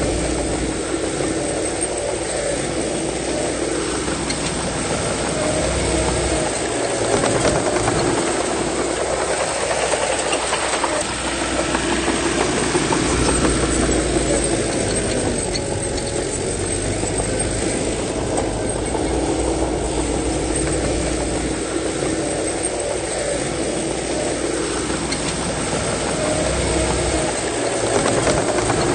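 Bulldozer's diesel engine working under load, its pitch rising and falling every few seconds as the load changes.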